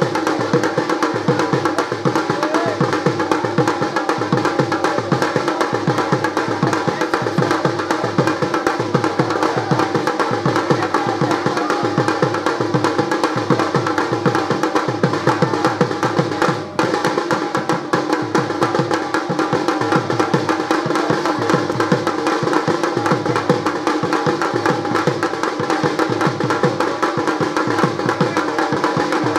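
Folk drumming accompanying a Raibenshe performance: a fast, steady drumbeat under a held, unchanging tone, with only a momentary break about seventeen seconds in.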